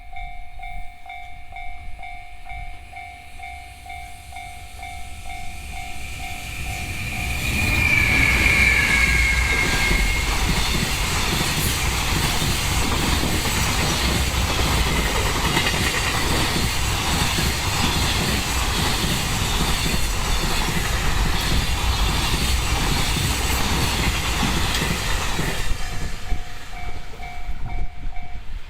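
A Japanese level-crossing alarm (JR standard electronic bell) dings repeatedly. About seven seconds in it is drowned out as a container freight train hauled by an EH500 electric locomotive passes: a loud steady rumble with wheel clatter over the rail joints for about eighteen seconds, with a brief high tone falling in pitch as the train arrives. The alarm dinging is heard again near the end once the last wagons have passed.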